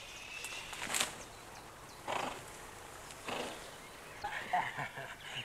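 A saddled horse lying down on its side in long grass. There is a sharp click about a second in, then two short rushing noises about a second apart.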